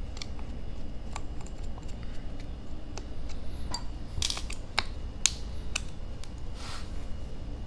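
Scattered light clicks and clacks of a handheld hex driver and small plastic parts being handled as screws are backed out of an RC crawler's plastic transfer case, with a few louder clacks from about halfway through and a short scrape near the end.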